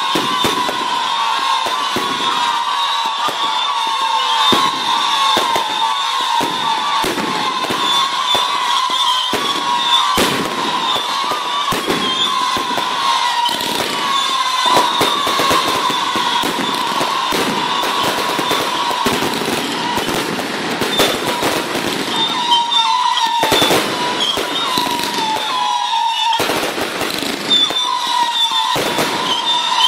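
Fireworks going off in a dense, continuous string of bangs and crackles. Under them a steady, slightly wavering whistle runs until near the end.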